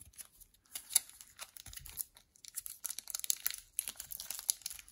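Clear plastic card top-loaders and sleeves being handled. A scatter of light clicks, crinkles and rustles comes as fingers slide and pick at the plastic, and it gets busier about halfway through.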